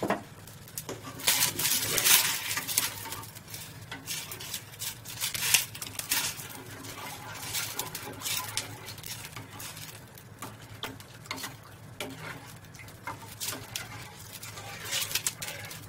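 A steel spoon stirring water in a steel kadhai, clinking and scraping irregularly against the pan over a low steady hum.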